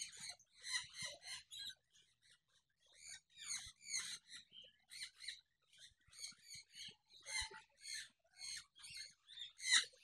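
Caged parrots in a shop chattering with short, harsh, high-pitched calls, two or three a second, briefly pausing about two seconds in.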